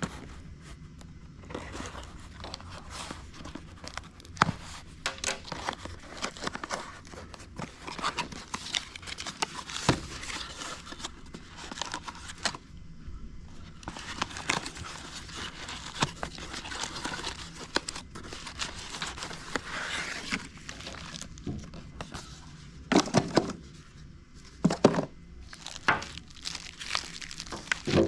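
Packaging being handled and opened during an unboxing: cardboard and plastic crinkling, rustling and tearing, with scattered clicks and knocks.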